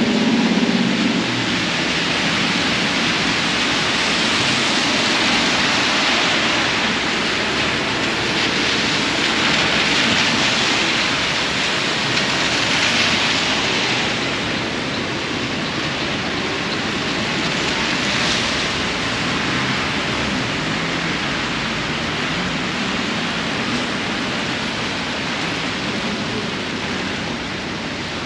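Heavy rain falling on an umbrella and wet city pavement, a steady hiss, with the swish of cars on the wet street. A low rumble fades out about a second in.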